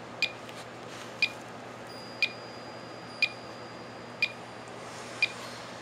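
GQ GMC-300 Geiger–Müller counter giving short high electronic beeps at an even rate of one a second, with a few fainter irregular clicks between them. The counter still reads a high count rate, its tube saturated by the thoriated Super-Takumar lens.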